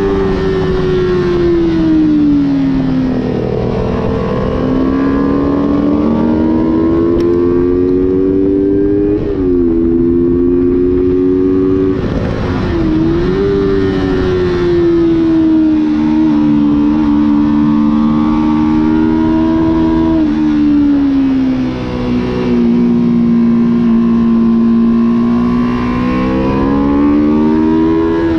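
Motorcycle engine heard from a camera mounted on the bike at speed. The revs climb and fall with the throttle, dropping suddenly at gear changes about three times.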